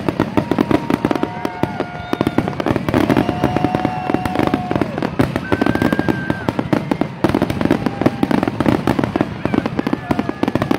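Aerial fireworks in a dense barrage: continuous rapid crackling and bangs from many shells bursting at once. Long, steady whistling tones sound over the crackle.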